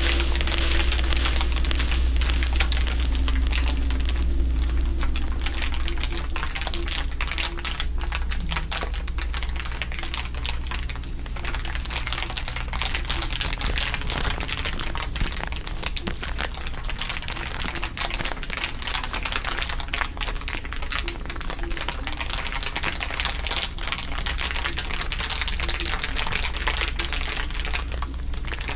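Layered crinkling, a dense continuous crackle of many small clicks, over a steady low hum.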